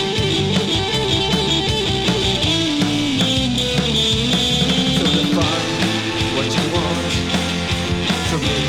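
Instrumental passage of a rock song with electric guitar and drums, played from a 7-inch vinyl single. A guitar line slides down in pitch and back up again about midway through.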